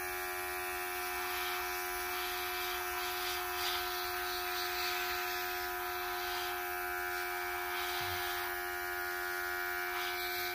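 Airbrush spraying paint with a steady hiss of air, over the hum of a small airbrush compressor running under load.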